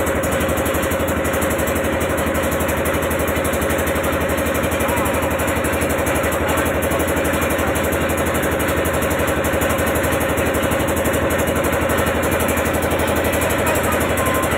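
Boat engine running steadily at a constant speed: an even hum with a fast regular pulse that does not change.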